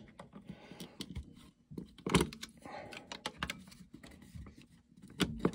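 A 6.5 Creedmoor cartridge being pressed into a 3D-printed plastic rifle magazine against a stiff follower spring: small scrapes and clicks of brass on plastic, with a sharper click about two seconds in and another near the end as the tenth round goes in.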